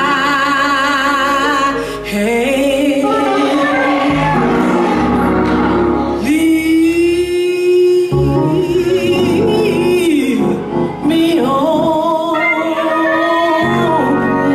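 A woman singing a slow gospel song into a microphone, holding long notes with a wide vibrato, over instrumental accompaniment with low sustained bass notes.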